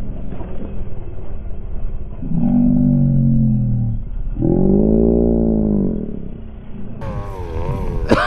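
Small two-stroke gasoline engine of a 1/5-scale RC buggy revving, its pitch falling once about two seconds in and then rising and falling again around the middle, over a low rumble.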